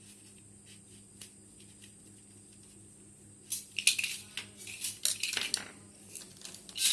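Small metal objects clinking and clattering as they are handled, a few faint clicks at first, then a run of sharp clatters from about halfway through, with another loud one at the very end.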